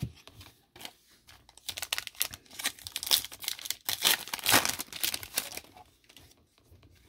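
Shiny foil wrapper of a 2021 Panini Absolute Football card pack crinkling and tearing as it is pulled open by hand, for about four seconds from a second and a half in.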